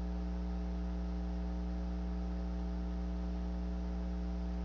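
Steady electrical mains hum, a low, unchanging drone with many overtones and no other sound.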